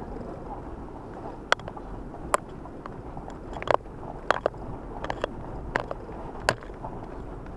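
A car creeping along a snowy, muddy dirt track, heard from inside the cabin: a low, steady rumble of engine and tyres, broken by about ten sharp, irregular clicks and crunches.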